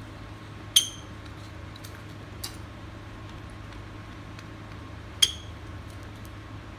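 Two sharp clinks of hard plastic, about four seconds apart, each with a short ringing, and a fainter click between them, as a blue plastic label-roll holder is fitted onto a paper label roll. A faint steady hum sits underneath.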